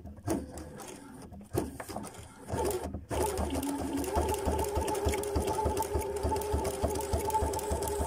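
Pfaff Performance Icon computerized sewing machine stitching through two layers of leather. It makes slower, spaced stitch ticks at first, then at about three seconds in runs steadily at speed with a fast, even stitch rhythm.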